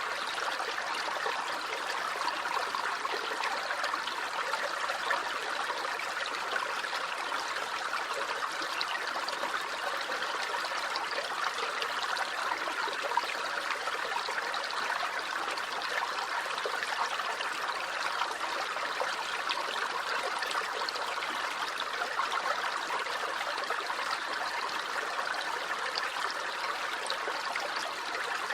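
A small stream running steadily over stones, a continuous babbling and trickling of water.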